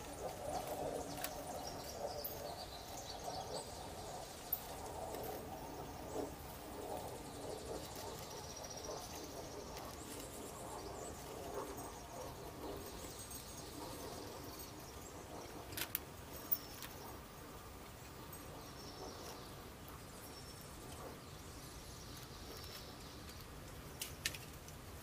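Yard ambience with small birds chirping faintly in the background. A few sharp clicks or taps stand out, about two-thirds through and near the end.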